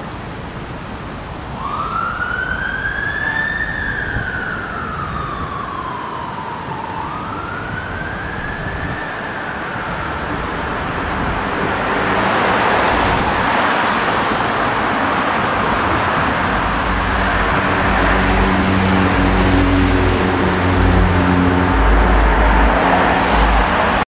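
Emergency ambulance siren in a slow wail, one long rise and fall followed by the start of another rise. About ten seconds in the wail gives way to a louder, steady rushing noise from the traffic and the approaching vehicle, with a low rumble building near the end.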